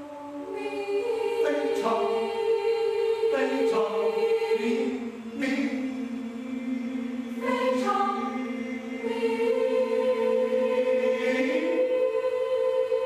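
Mixed choir singing a cappella in sustained chords, with no instruments. Low voices hold long notes while the upper parts move and swell, changing chord every couple of seconds, then the choir settles on one long held chord near the end.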